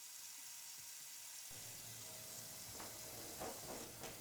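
Steady faint hiss of room tone, joined by a low hum about a third of the way in, with a few faint brief sounds near the end.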